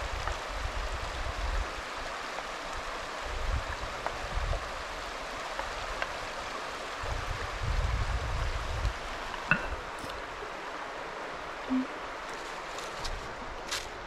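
Steady outdoor background hiss, with low wind gusts buffeting the microphone several times and a few sharp clicks.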